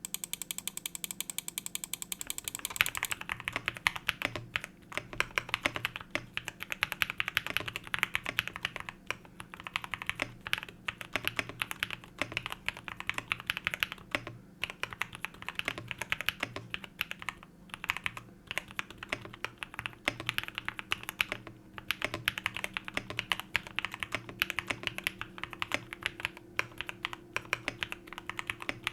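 Typing on a Tofu65 2.0 mechanical keyboard with Gateron Smoothie linear switches. It opens with a fast, even run of keystrokes for about three seconds, then goes on as continuous ordinary typing.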